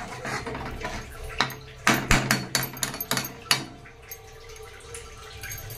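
Metal spatula stirring a thin, watery curry in a steel kadai, clinking and scraping against the pan's sides with a run of sharp knocks over the first three and a half seconds, then going quieter once the stirring stops.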